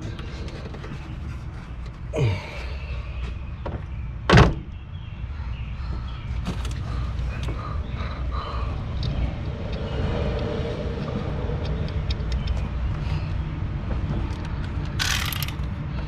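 Hand tools working on the expansion valve fittings: scattered metal clicks, a loud clank about four seconds in and a short rasp near the end, over a steady low hum.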